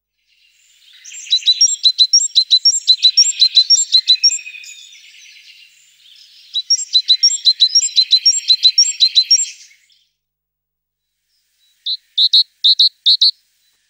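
Small songbird chirping: two long runs of rapid, high repeated notes, then a few short, separate high calls near the end.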